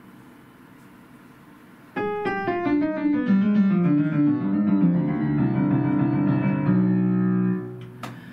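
Upright piano played: after a quiet start, a phrase begins suddenly about two seconds in, a melody stepping downward over lower chords, and it ends on a held chord that is cut off shortly before the end.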